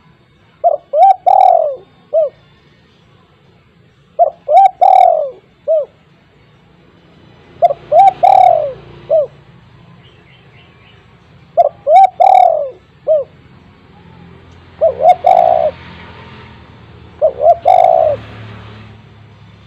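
Spotted dove cooing, six repeated phrases a few seconds apart. Each phrase is two short coos, a longer arched coo and a short final coo.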